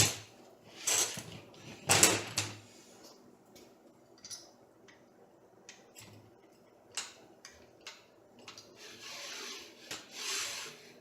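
3D printer kit parts being handled and fitted: a few sharp knocks in the first two seconds, scattered small clicks, then a rubbing scrape near the end.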